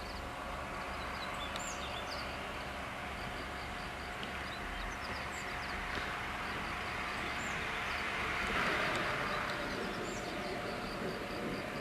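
Steady running noise of a diesel train, with small bird chirps repeating high above it.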